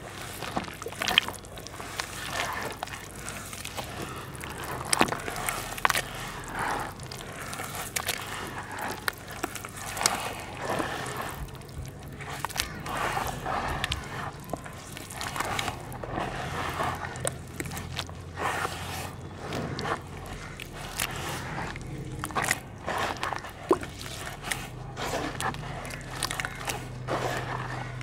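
Hands crumbling red dirt into water in a plastic basin and squeezing it into a thick mud: continuous wet squishing and sloshing, dotted with small sharp splats and drips.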